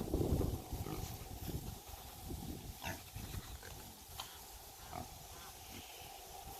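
Pigs grunting low and repeatedly, loudest in the first second.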